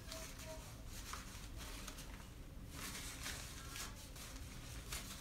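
Paper towel crinkling and rustling in several short spells as it is handled and used to wipe an RC shock absorber during a rebuild, over a faint low hum.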